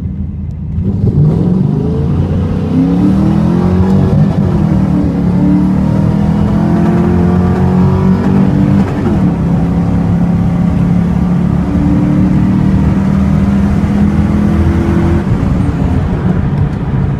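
V8 engine at full throttle during a street race, heard loud from inside the cabin. It picks up about a second in and climbs in pitch, dropping back at gear changes about four and nine seconds in, then holds steady before easing off near the end.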